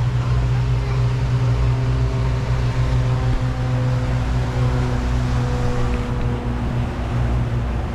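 Tour boat's engine running steadily underway: a constant low drone with a rushing haze of wind and water over it.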